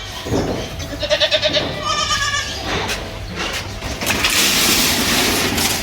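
Goat kids bleating: two wavering, quavering calls about one and two seconds in, then a loud hissing noise for over a second near the end.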